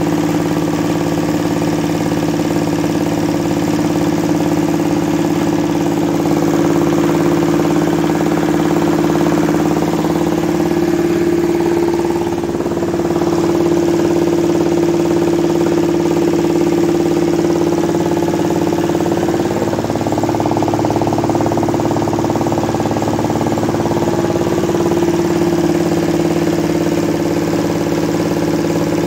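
Old 8-horsepower diesel engine running steadily, driving a rice mill that is milling rice: a continuous loud drone with a strong steady hum, shifting slightly a couple of times.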